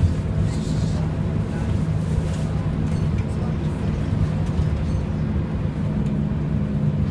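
Volvo B10BLE bus's diesel engine and very loud cooling fan running, a steady low drone with no change in pitch.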